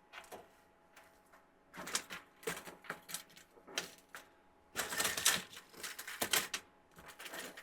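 Hard plastic clicking and rattling in irregular clusters as the icicle light string's plastic parts are handled, with a dense run of clicks about five seconds in.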